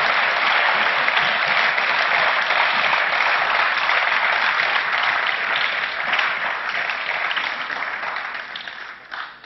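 Applause from a seated assembly, many people clapping steadily. It thins out near the end and finishes with a few scattered claps.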